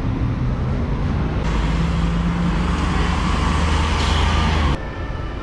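City traffic dominated by a double-decker sightseeing bus's engine running close by, a steady low hum with a rushing hiss that swells through the middle. The sound cuts off abruptly near the end, leaving quieter traffic.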